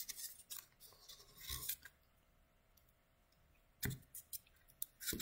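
Faint rustling and rubbing of a green paper strip being rolled tightly by hand into a stem, with a few sharp clicks near the end.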